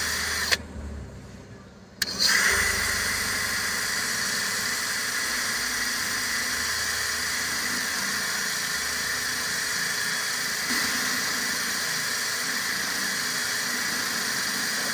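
DeWalt cordless drill running with a sharpening disc in its chuck, grinding on a hatchet or machete blade: a steady motor whine with a grinding hiss. It cuts out about half a second in and spins down, then starts again with a click about two seconds in and runs steadily on.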